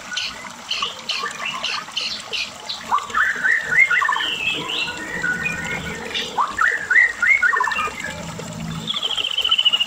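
White-rumped shama (murai batu) singing a long, varied song: quick sharp chips, then rising slurred whistles, ending in a fast trill that falls slightly in pitch near the end.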